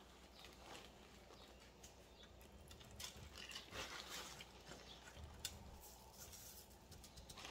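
Faint crinkling and rustling of crushed corn flakes and a plastic zip-top bag, with a few light scattered crackles as the flakes are pressed onto raw chicken by hand.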